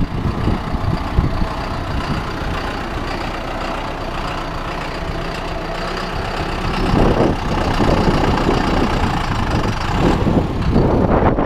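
John Deere tractor engine running, getting louder and rougher about seven seconds in as it works.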